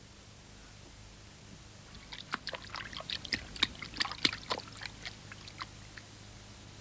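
Water sloshing in two carried wooden buckets, heard as a quick, irregular run of light knocks, clicks and splashes. It starts about two seconds in and fades out a little over a second before the end, after a faint hiss.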